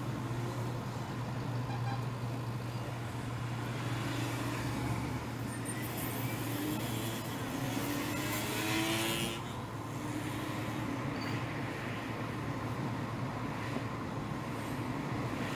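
Car engine and tyre noise heard from inside the moving car, a steady low hum under road rush. The engine pitch climbs as the car speeds up through the middle, then eases off suddenly about nine and a half seconds in.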